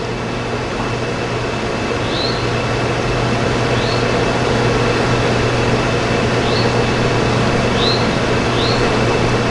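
A steady machine-like hum and rushing noise, slowly growing louder, with a few short, faint high chirps over it.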